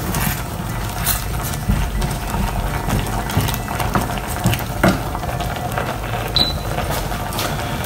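Wooden spoon stirring thick macaroni, potato and milk sauce in a steel saucepan, with scraping and scattered light knocks of the spoon on the pot; the sauce is stirred to keep it from sticking to the pan as the milk thickens.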